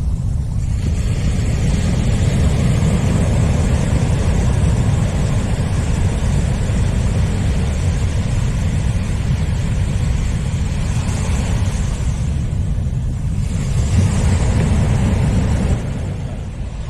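Wind buffeting the camera microphone over the steady wash of surf on the beach, a constant rumbling noise that swells for a few seconds near the end.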